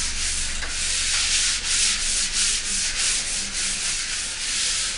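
Hand sanding a bare plaster wall with a sanding block: quick back-and-forth strokes, each a scratchy hiss, about three a second, as the wall is prepared for painting.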